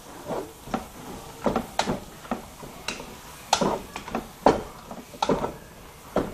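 A cooking utensil stirring food in a stainless steel pot, scraping and knocking against the metal in irregular strokes, about one or two a second.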